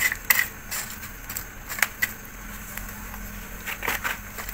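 Scattered sharp clicks and light scraping as banana-leaf-wrapped fish parcels are pushed into glowing charcoal embers with a wooden stick, with a brief rustle and scrape about four seconds in.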